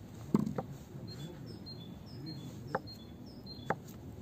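Kitchen knife slicing boiled sausage and knocking on a wooden cutting board: a few sharp taps at uneven intervals, the loudest just under half a second in. Small birds chirp faintly in the background.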